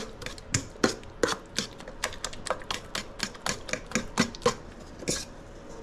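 A fork mashing ripe bananas in a bowl, tapping against the bowl in quick sharp clicks about four times a second, which stop shortly before the end.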